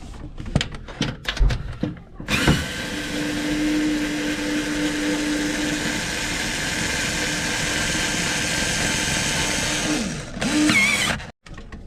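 A few clicks and knocks, then a small electric motor runs steadily for about eight seconds, stops, and runs again briefly before cutting off.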